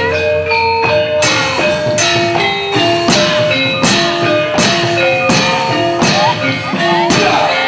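Javanese gamelan ensemble accompanying wayang kulit: bronze metallophones ring a steady run of sustained notes. From about a second in, sharp percussive strokes come regularly, about every three-quarters of a second.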